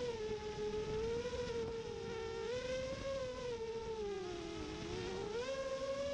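FPV quadcopter's motors spinning DAL Cyclone 5050C props: a wicked-sounding buzzing whine whose pitch rises and falls with the throttle. It sags lowest about four to five seconds in, then climbs again.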